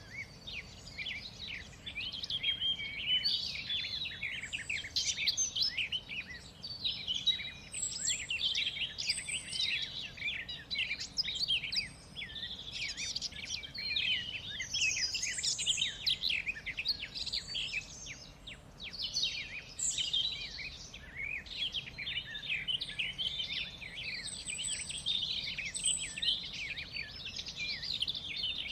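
Many songbirds singing and chirping at once: a dense, continuous chorus of quick overlapping chirps and trills.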